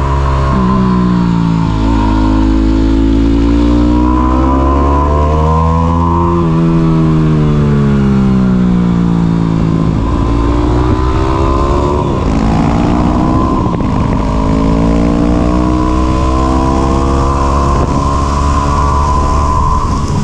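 Yamaha WR250 motorcycle's single-cylinder engine under way, revving up in pitch through the gears with sudden drops at the shifts, then easing off in long falling decelerations.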